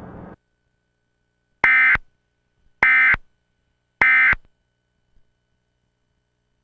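Emergency Alert System end-of-message tones: three short, buzzy digital data bursts about a second apart, the SAME "NNNN" code that closes an alert, dubbed through a VCR.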